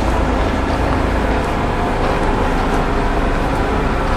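An engine running steadily, with an unchanging low drone.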